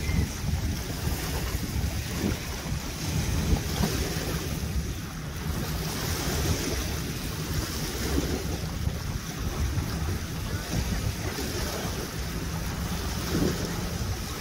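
Wind buffeting the microphone and small waves lapping at the shore, over the low steady hum of a motorboat's engine idling in slowly toward the dock.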